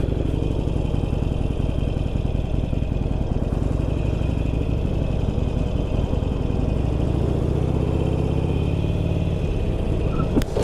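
Cruiser motorcycle engine running at a steady, loud level while riding, with wind noise on the helmet camera; a single sharp knock near the end.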